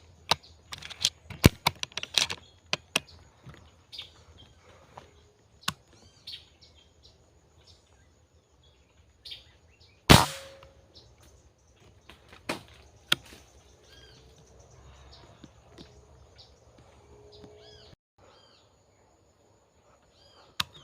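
A single shot from a Benjamin Commander air rifle about ten seconds in, a sharp crack with a short tail, among birds chirping. Sharp clicks and ticks come in the first few seconds and again a couple of seconds after the shot.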